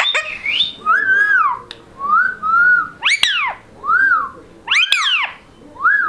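Rose-ringed parakeet giving a run of about eight short whistled notes, each rising then falling in pitch, with two louder, sharper notes about three and five seconds in.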